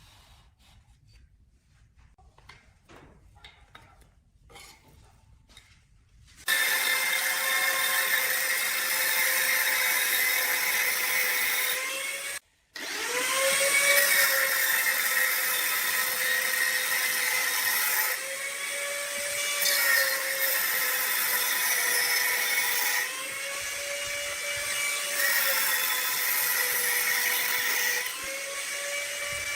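A few faint handling clicks, then a handheld electric power tool starts about six seconds in and runs steadily at high speed. Near the middle it cuts out for a moment and spins back up, and its pitch dips and recovers several times after that.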